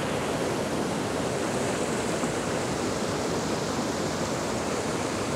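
Steady rush of a mountain stream's white water tumbling through boulders.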